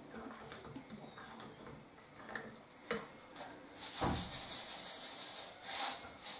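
Spatula scraping lightly as lye is stirred into frozen buttermilk in a glass bowl, with a single click about three seconds in. About four seconds in comes a loud hissing rattle, and a shorter one near the end, as more lye is poured from a plastic jug into the bowl.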